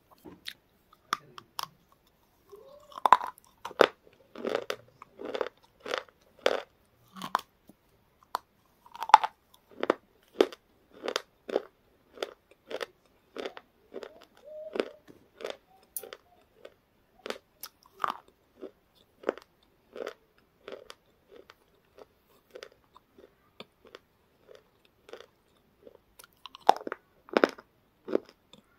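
A person biting into a hard, crunchy white piece of food and chewing it steadily, about one to two crunchy chews a second. The loudest bites come about three seconds in and again around nine seconds in.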